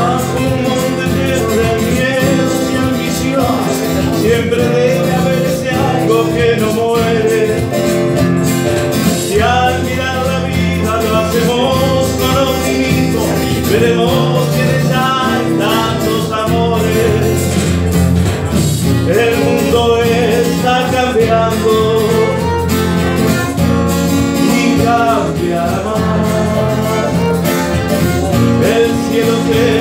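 Small live band playing an instrumental introduction: a violin carries a wavering melody over acoustic guitar and keyboard accompaniment.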